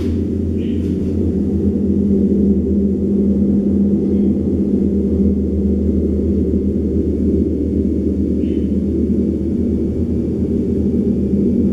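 A 200 cm Javanese giant gong, played with a soft-headed mallet, gives a steady, deep drone of many overlapping low tones. There is a short tick right at the start.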